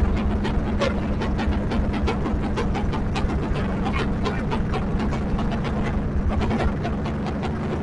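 Modified 300cc motorcycle engine running steadily while being warmed up, with a constant low drone and rapid irregular crackles from the exhaust.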